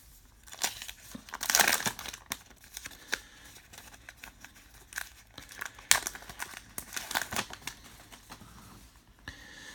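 Plastic wrapper of a 2019 Topps Heritage baseball card pack crinkling and tearing as it is opened by hand, in a series of sharp rustles, the loudest about a second and a half in. Softer rustling of the cards being handled follows near the end.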